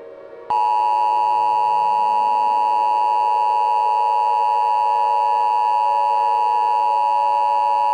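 Emergency Alert System attention signal: the two-tone alarm of 853 and 960 Hz sounded together. It comes in sharply about half a second in after a brief quiet gap and holds as one steady, loud, unwavering tone, the signal that an emergency announcement is about to follow.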